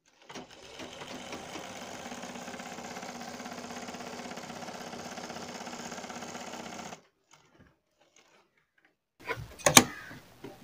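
Black straight-stitch sewing machine running steadily as it stitches a piping strip onto brocade blouse fabric. It builds up over about half a second at the start and stops sharply about seven seconds in. After a short pause come a few short, loud knocks near the end.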